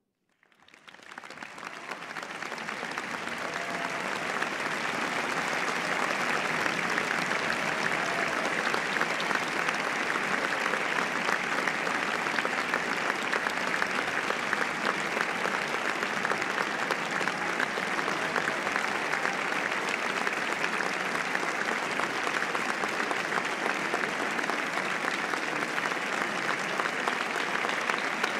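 Audience applauding in a theatre after the opera's music ends: the clapping breaks out from silence, swells over the first few seconds, then goes on steady and dense.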